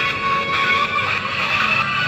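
Mobile phone ringing with a musical ringtone: an incoming test call placed by a GSM burglar alarm, the sign that the alarm's SIM, network and balance are working.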